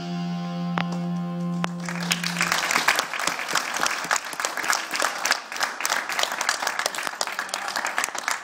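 Electric guitar's last chord left ringing, then an audience applauding from about two seconds in.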